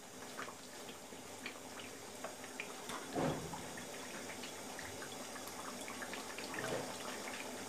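Beef curry gravy simmering in a karahi on a gas burner: a low bubbling with scattered small pops. About three seconds in, one short knock of the wooden spatula against the pan.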